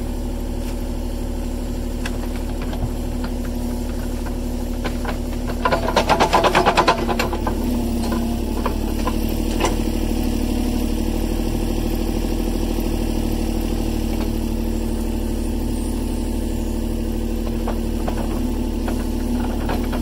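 An engine running steadily, with a burst of clanking and rattling about six seconds in, as machinery covers the buried tire septic system with dirt.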